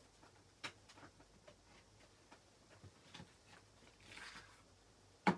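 Scattered light taps and clicks of small craft tools and paper being moved about on a tabletop by hand, with a soft rustle about four seconds in and a sharper knock near the end.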